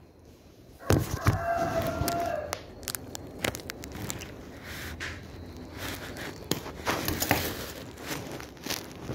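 A plastic shipping mailer being handled and torn open: crinkling, rustling and tearing with many sharp crackles, starting suddenly about a second in, with a short held tone near the start.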